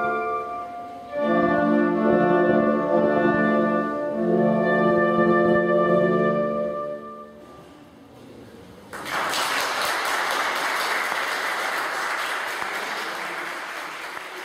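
Wind quintet of flute, English horn, clarinet, horn and bassoon playing the sustained closing chords of a slow piece, which stop about seven seconds in and die away in the hall's echo. About two seconds later audience applause starts suddenly and slowly fades.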